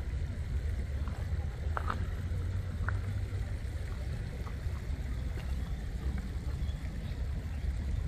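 Steady low outdoor rumble, with a few faint short chirps or ticks about two and three seconds in.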